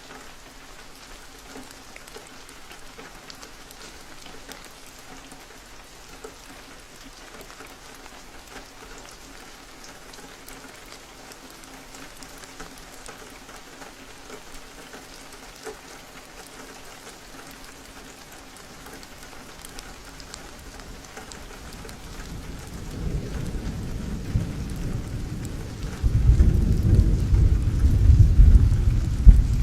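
Steady rain falling, with thunder rumbling in over the last several seconds, building and becoming much louder in the final few seconds.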